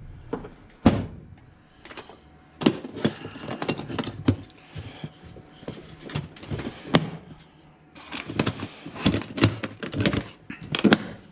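Tools and parts being handled and packed away into a container: scattered knocks, clicks and clatter, with a heavier knock about a second in and a busy run of clicks near the end.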